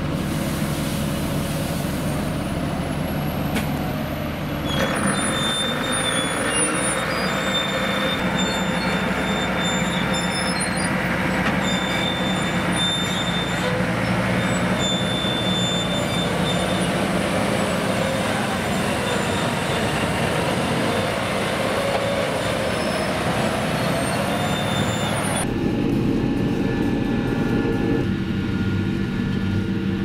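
Diesel engines of large farm tractors working at a maize silage clamp: a tractor unloading a forage wagon of chopped maize, then a Claas Xerion pushing up the clamp. The engines run steadily, with a few short high tones over them, and the sound changes abruptly about five seconds in and again near the end.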